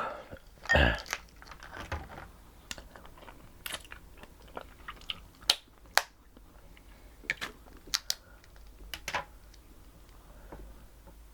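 Close-miked eating of blue crabs: chewing with many scattered sharp clicks and small cracks of crab shell, and a louder knock just under a second in.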